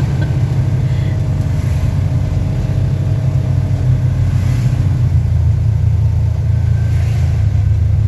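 Polaris General XP 4 1000 side-by-side's engine running at low speed, heard from inside its cab as a steady low drone.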